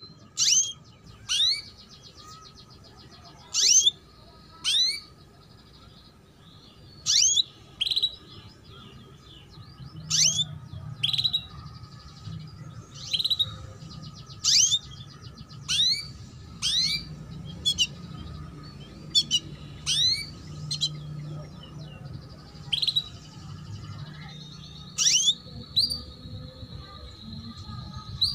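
Female canary giving sharp 'cuit cuit' calls, singly or in pairs every one to two seconds, each a quick downward note followed by a rising one, over faint twittering. This is the female call used as a lure to set young canaries singing and to raise their breeding drive.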